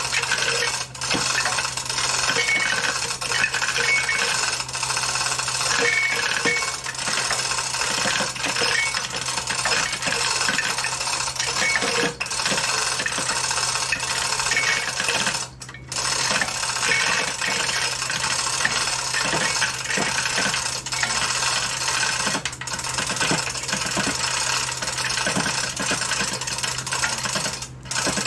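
Continuous metallic rattling and clicking of the lifting gear as the Ford 545A backhoe's engine is raised to go onto an engine stand, stopping briefly a few times. A steady low hum runs underneath.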